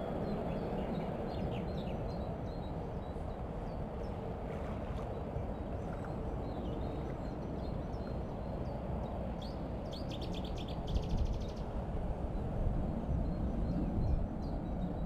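Steady low rush of river water and breeze around a wading angler, with small birds chirping now and then and a quick rapid trill about ten seconds in.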